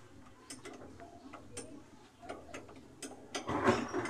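Scattered metallic clicks of a hand wrench working on a car battery's loose negative terminal clamp as it is tightened, with a louder clatter about three and a half seconds in.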